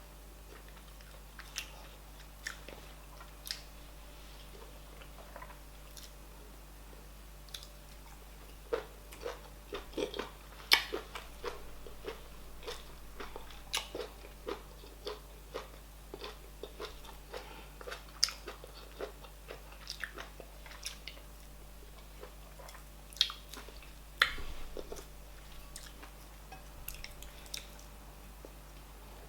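Close-miked eating: chewing with wet mouth smacks and sharp clicks as oha soup and cauliflower fufu are eaten by hand, busiest in the middle, with a few louder smacks near 11 and 24 seconds.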